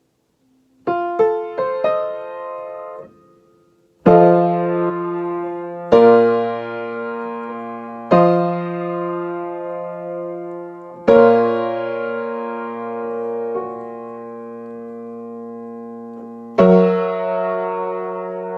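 Piano keyboard played solo: four quick single notes about a second in, then five sustained chords with bass notes, each left ringing and fading, with a long held chord before the last one near the end.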